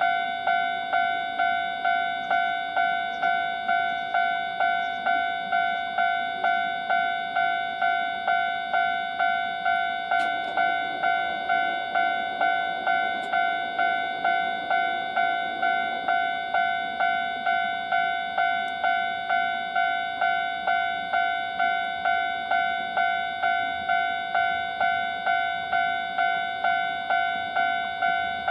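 Japanese level-crossing warning bell ringing its steady "kan-kan" alarm, a two-tone ding repeated about one and a half times a second. A fainter low rumble rises and falls near the middle.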